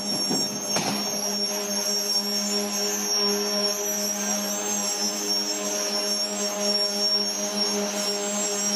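Engine of a rail work vehicle running steadily: a deep hum with a high whine over it, and a short rattle about a second in.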